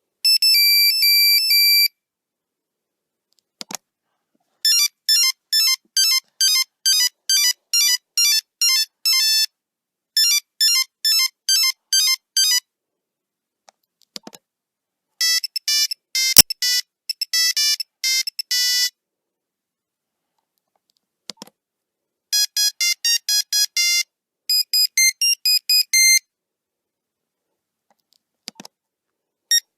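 Nokia 3310 monophonic ringtones played one after another: several short, high-pitched melodies of rapid single-note beeps, each separated by a pause of silence, with brief clicks between some of the tunes.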